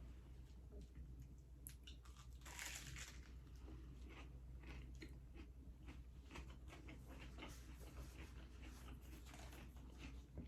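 A person eating: quiet chewing with many small, irregular crunches and bites.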